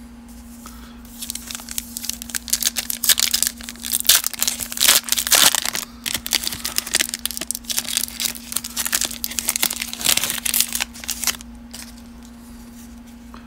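Foil wrapper of a baseball trading-card pack being torn open and crinkled by hand, a dense crackling that runs about ten seconds and stops shortly before the end. A faint steady hum sits underneath.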